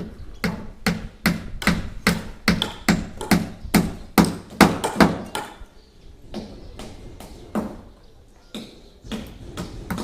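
Hand-tool strikes at construction work, hammer-like blows coming steadily about two to three a second, then slowing to a few scattered strikes after about six seconds.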